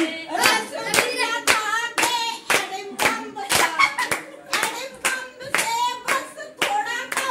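A group clapping in time, about two claps a second, while voices sing along, as when a birthday song is sung around a cake.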